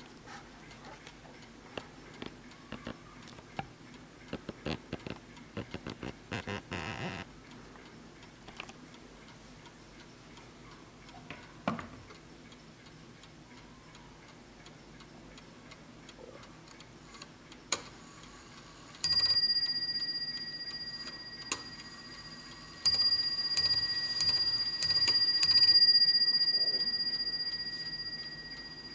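Antique French Vincent bell-striking mantel clock, c1855, ticking, with a short clatter about six seconds in. Its movement then strikes the bell once, and a few seconds later strikes it about six times in quick succession, the bell ringing on after the last blow.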